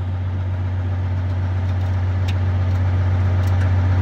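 Heavy truck engine sound: a steady low drone that grows slightly louder, with a faint click about two seconds in.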